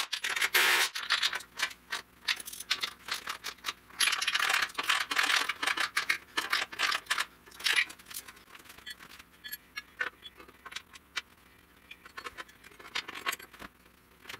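Metal tools and bolts clicking and rattling in irregular bursts while the bumper and winch mount are bolted up, with several short hissing bursts in the first half.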